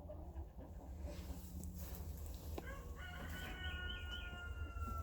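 A rooster crowing once, one long call lasting about two seconds that starts about three seconds in, over low chicken-coop background noise.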